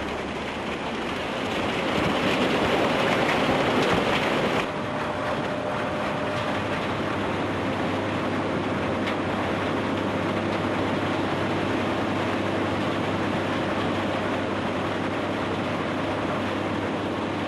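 A loud, even rushing noise for about the first four and a half seconds, which cuts off suddenly. It is followed by a steady machine drone with a constant low hum: a track-mounted Nordberg LT1213 mobile impact crushing plant running.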